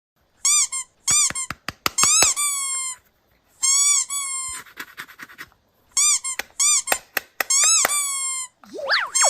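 Bursts of short, high-pitched squeaks with sharp clicks among them, in groups with pauses between. Near the end there is a quick rising whistle-like glide.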